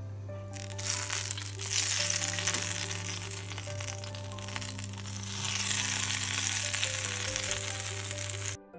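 Hot oil, seasoned with red pepper and dried mint, sizzling as it is poured from a frying pan over cold garlic yogurt, with background music underneath. The sizzle starts about half a second in and cuts off suddenly near the end.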